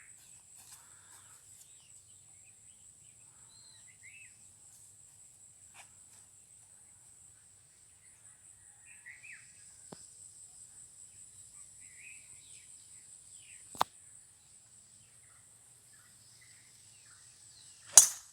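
Steady high insect drone with scattered bird chirps, a single sharp click a few seconds before the end, then near the end a loud sharp crack of a golf driver striking the ball off the tee.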